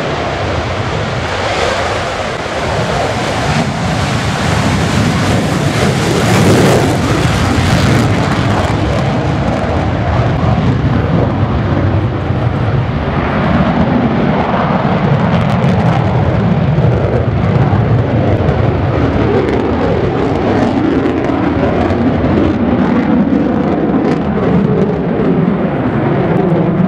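Jet roar from the F-22 Raptor's twin Pratt & Whitney F119 turbofans as it takes off and climbs away overhead. The roar stays loud and steady, swelling to its loudest about six to eight seconds in.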